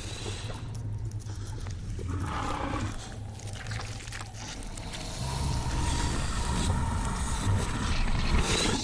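Low, rumbling growls of a giant toad creature, a film sound effect, growing louder in the second half.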